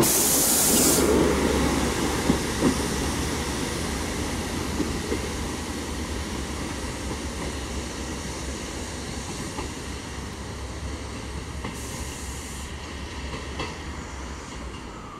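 Class 158 diesel multiple unit pulling away and receding, its engine drone and running noise steadily fading. A short burst of air hiss comes at the start and a fainter one about twelve seconds in, with a few sharp clicks from the wheels over the rail joints.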